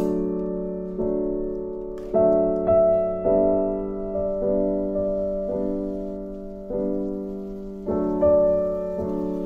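Background piano music: slow, held chords, a new one struck about once a second and fading away between strikes.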